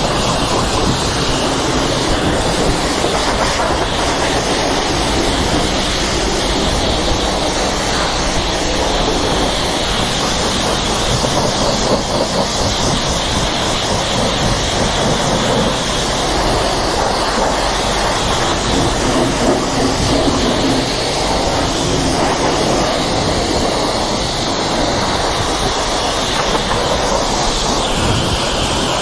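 High-pressure washer lance spraying a steady jet of water onto a motorcycle's wheels and bodywork and the wet concrete beneath, a loud continuous hiss and spatter.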